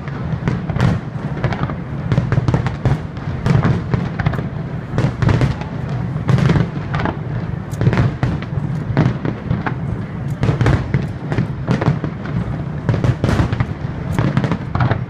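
Aerial fireworks shells bursting in a dense, continuous barrage: many sharp bangs and cracks in quick succession over a steady low rumble of booms.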